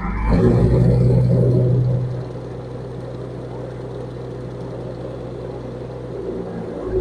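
Jaali grinder machine switched on and running: a steady low machine hum that starts at once, louder for about the first two seconds, then settles to an even, lower-level drone.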